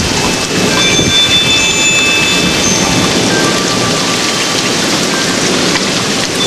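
Steady downpour of rain, with rolling thunder underneath and a few high ringing notes.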